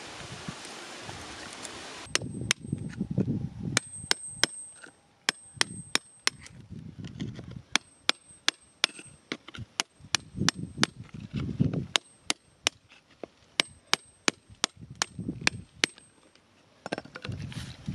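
Flat steel chisel blade tapping and scraping into cemented gravel to pry out an embedded crystal: many sharp metallic clicks, some with a brief high ring, over gritty scraping. For about the first two seconds there is only a steady outdoor rustle.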